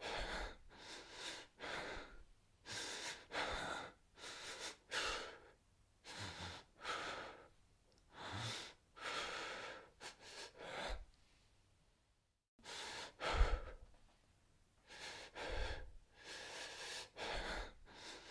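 A man's fast, panicked breathing, the breathing of a terrified man: quick noisy breaths in and out, about two a second. It stops for about a second near the middle, then resumes with one louder breath.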